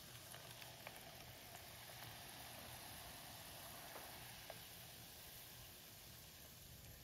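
Faint, steady bubbling and sizzling of melted candle wax heating in a glass pot on an electric hot plate, with a few light clicks of a spatula stirring it.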